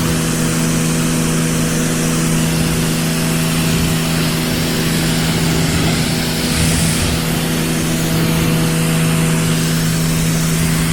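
Sun Joe electric pressure washer running steadily at full pressure, its motor and pump giving a loud, even hum over the hiss of the water jet from the wand.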